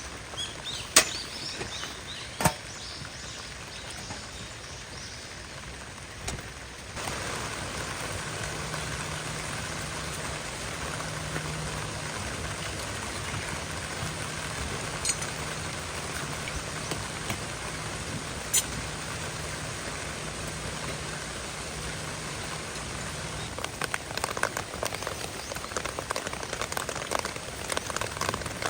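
Steady rain falling, with a few sharp knocks in the first few seconds and a denser pattering on a surface near the end.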